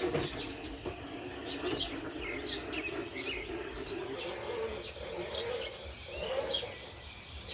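Birds chirping: short, high chirps repeating every half second or so, over a steady low hum.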